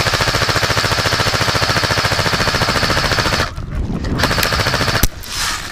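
Airsoft MG4 support-weapon replica firing one long, fast, even full-auto burst that stops about three and a half seconds in. A single sharp crack comes near the end.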